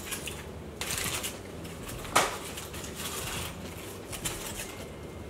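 Aluminium foil burger wrappers crinkling and rustling as they are unwrapped and handled, with one sharp crackle about two seconds in.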